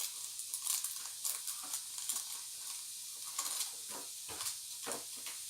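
Slime and toppings being mixed by hand in a small plastic container: irregular small sticky clicks and crackles.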